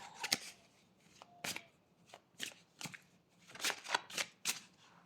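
Fortune-telling cards being shuffled and handled by hand: a run of short, irregular card snaps and slaps.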